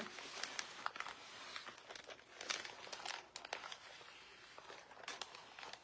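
Crumpled newspaper crinkling in the hand as it is wiped around the edges of a water-filled marbling tray, with scattered sharp crackles.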